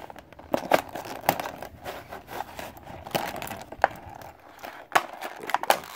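Stiff plastic clamshell blister packaging crinkling and crackling as it is cut with a utility knife and pried apart by hand, with many small sharp clicks and snaps.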